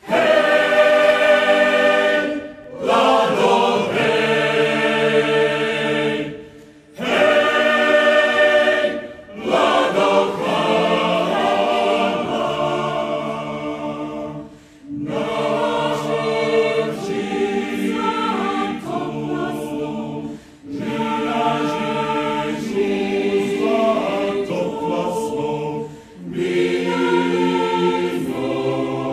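Mixed choir singing a cappella in several voice parts, in sung phrases broken by short pauses every few seconds.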